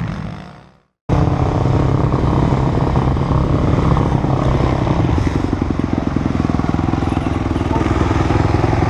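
Single-cylinder four-stroke engine of a 2018 Suzuki RM-Z250 dirt bike fading out. After a brief silence it cuts back in abruptly about a second in and keeps running loud and fairly steady.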